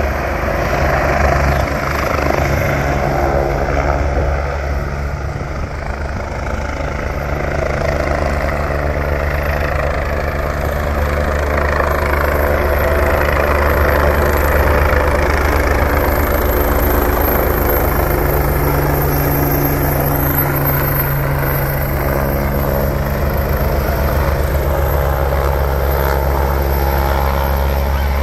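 Helicopter coming in to land, its rotor and engine running loud and steady.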